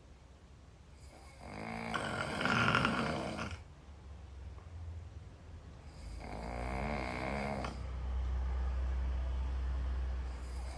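A young woman snoring loudly in her sleep: two snores about four seconds apart, the first the louder, followed by a low steady rumble near the end.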